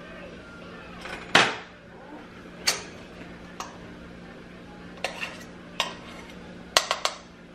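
A metal spoon clinking, tapping and scraping against a saucepan as mashed potato is scooped out, with one loud sharp knock about a second and a half in and several lighter taps after it.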